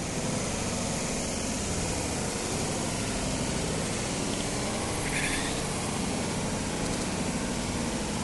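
Steady rush of a fast mountain stream, an even hiss without rhythm. A brief high sound breaks through about five seconds in.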